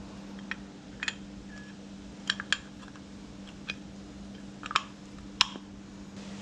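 A dozen or so sharp clicks and light taps of small hard objects, scattered and irregular, the loudest two near the end, over a steady low hum.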